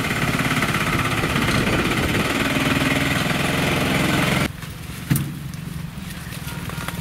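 Bajaj Maxima autorickshaw's single-cylinder engine running as the loaded three-wheeler drives slowly along a dirt track, a steady rapid pulsing. It stops abruptly about four and a half seconds in, giving way to a quieter outdoor background with one sharp click.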